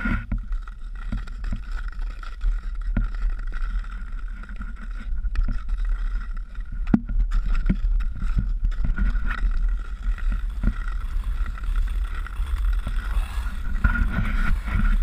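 Ice skate blades scraping over an ice glaze on a paved path, with irregular sharp clicks from the strides and a steady low rumble of wind on the microphone.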